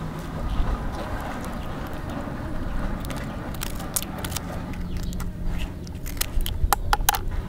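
Scissors snipping through a raw mantis shrimp's shell: a run of sharp, crisp clicks and crunches that come thickest near the end, over a steady low rumble.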